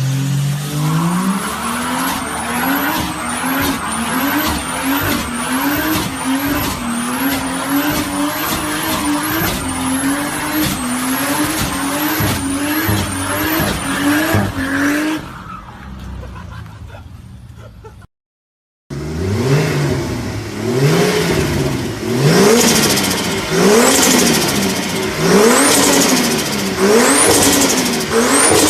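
Turbocharged Ford Barra 4.0-litre straight-six being revved over and over, about once a second, with a high turbo whistle rising with each rev. The sound fades out about fifteen seconds in, drops out briefly, then a second run of revs with whistles starts.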